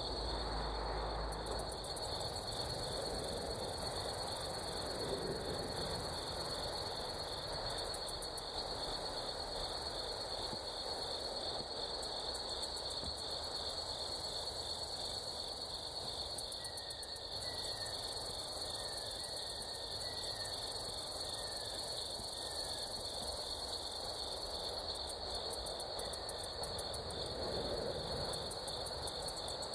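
Steady high-pitched drone of an insect chorus, with fast buzzing trills coming and going above it. About halfway through, a run of about eight short falling chirps sounds over the chorus.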